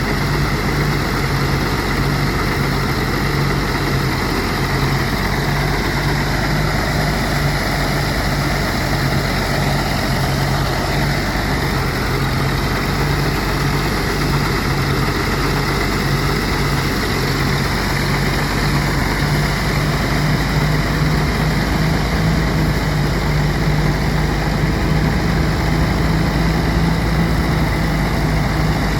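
Engine-driven rice thresher running steadily at an even speed.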